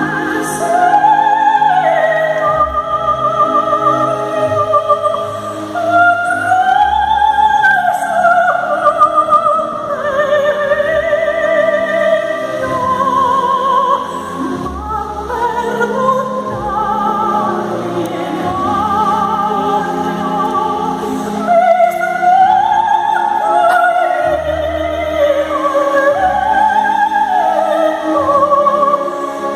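Music: an operatic voice singing long, wavering phrases with wide vibrato over orchestral accompaniment.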